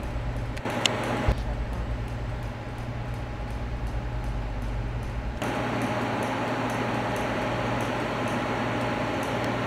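Double-stack intermodal freight train rolling past: a steady rumble of steel wheels on rail with regular faint clicks. There is a single thump about a second in, and the sound turns duller for a few seconds before clearing again.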